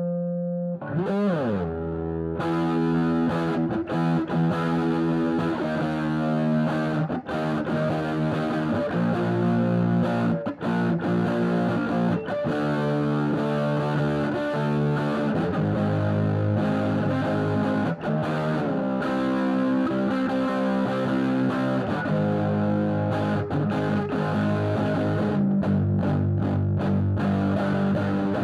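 Electric guitar played through the SAE Effects Big Red pedal's Drive side, a hand-wired Red Llama–style germanium overdrive/fuzz, giving continuous distorted rock riffing. About a second in, a note swoops down and back up in pitch before the riffing starts.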